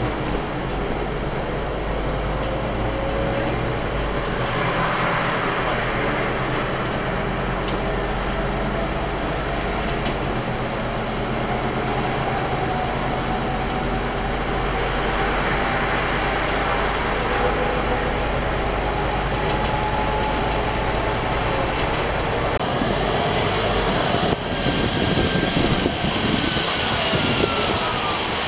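Scania UNVI Urbis 2.5 DD CNG double-decker bus running, heard inside on the upper deck: a steady low hum with a faint whine that rises slowly in pitch as the bus picks up speed. Near the end the noise turns rougher and a whine falls in pitch as the bus slows and pulls up at a stop.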